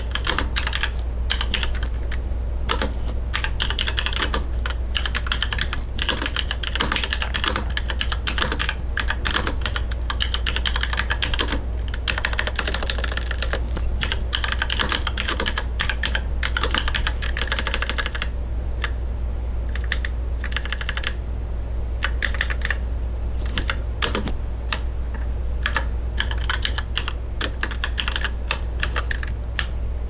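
Fast typing on a computer keyboard: a dense, continuous clatter of key clicks with a few brief pauses in the second half, over a steady low hum.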